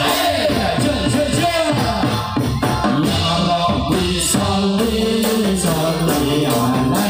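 Javanese angguk dance music: a melody with sweeping and held notes, with singing, over steady hand-drum and jingling percussion.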